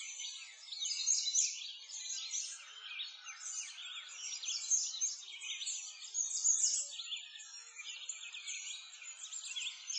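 A dense chorus of small songbirds, many quick high chirps and twitters overlapping without pause.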